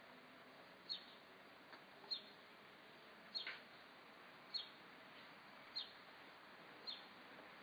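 A bird repeating a short, high, downward-sweeping chirp about once every second and a bit, faint over a steady hiss.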